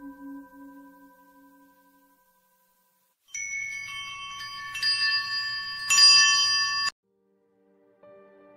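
A held musical tone fades away over the first two seconds. After a brief silence, bright metallic chimes ring together in several high tones for about three and a half seconds, then cut off abruptly. Soft sustained music begins near the end.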